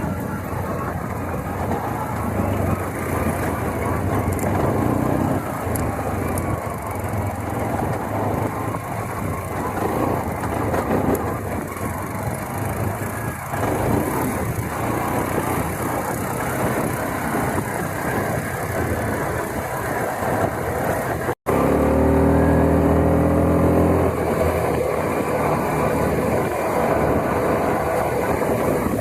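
ATV engines running steadily while riding. About twenty seconds in, the sound drops out for an instant, then a louder, steady-pitched engine tone follows for a couple of seconds.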